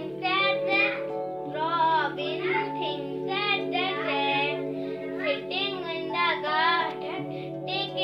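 A young girl singing a children's poem in a high voice over steady background music with held chords.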